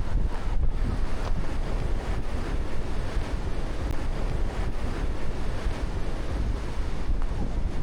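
Wind buffeting the microphone in a steady low rumble over the continuous wash of Black Sea surf breaking on the beach.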